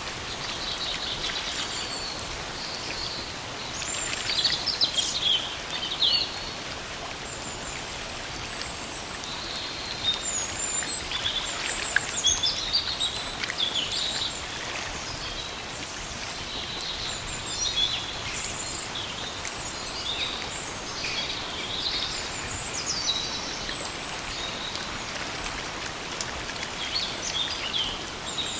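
Steady rain falling in a forest, a continuous patter, with several birds chirping and trilling on and off throughout.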